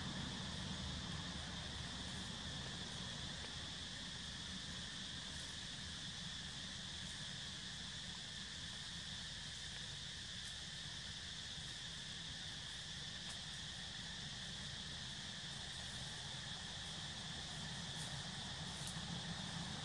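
A steady chorus of forest insects: one constant high-pitched drone that does not change, over a low background rumble.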